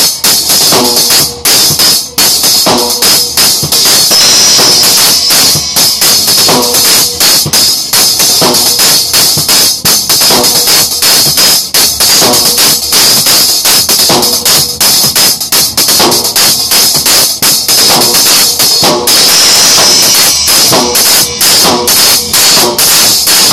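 A drum kit played loudly and steadily through a song, the cymbals ringing almost without pause and dominating, with quick drum strikes underneath, recorded right beside the cymbals.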